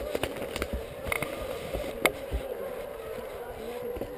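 A pack of foxhounds in cry, many voices blending into a steady, wavering chorus. Sharp close-up snaps and knocks cut in now and then, the loudest about two seconds in.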